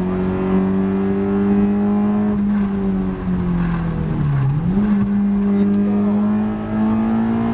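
Citroën Xsara VTS rally car's engine heard from inside the cabin, pulling hard at high revs. The engine note climbs slowly, steps down briefly, then dips sharply about four seconds in as the car slows for a bend and picks back up to climb again.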